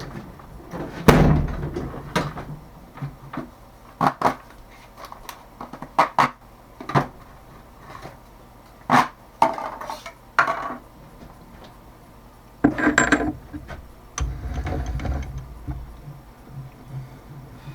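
Metal tools and parts being handled at a workbench: a series of separate clinks and knocks, with a few longer, louder clattering bursts about a second in and again near the end.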